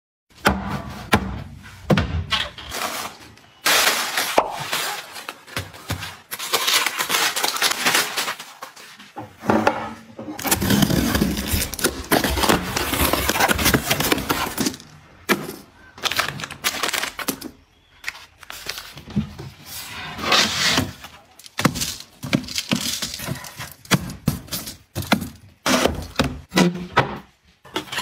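Packaged snacks and kitchen containers being handled and put away: a run of irregular clacks, knocks and crackling rustles of packaging.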